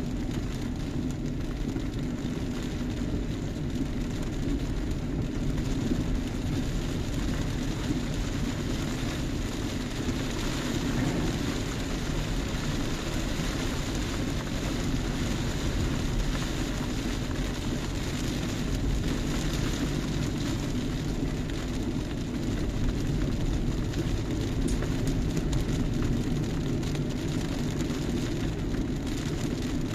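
Steady noise of a car driving on a wet road in the rain, heard from inside the cabin: engine and tyre noise.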